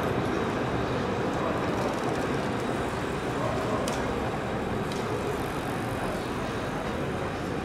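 Steady street traffic noise as a tram runs away along the tracks, slowly fading, with two faint clicks near the middle.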